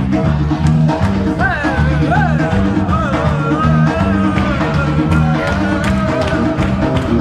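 Live band music with electric bass and hand percussion; a high melody that slides in pitch comes in about a second and a half in.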